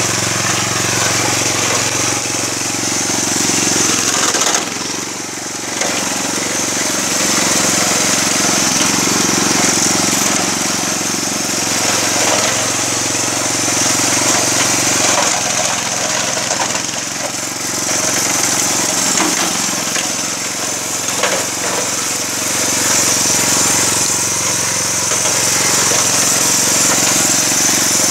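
Homemade belt-driven rotary lawn mower running steadily under a small engine, its blade spinning as it cuts through grass and weeds. The level dips briefly about five seconds in.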